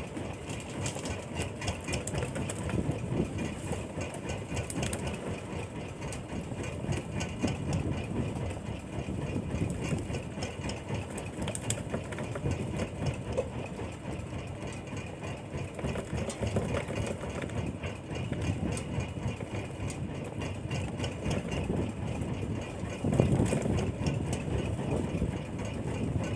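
Fishing boat's engine running steadily at idle, with a fast regular pulsing.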